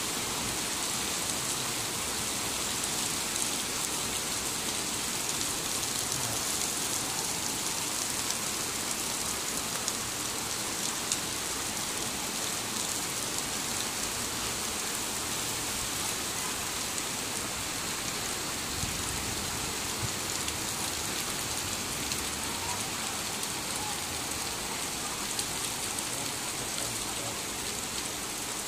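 Torrential rain falling steadily on grass and a paved path, an even hiss with faint drop ticks here and there.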